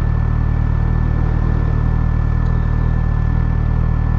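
Suzuki GSX-S1000GT's inline-four engine idling steadily with the bike standing still.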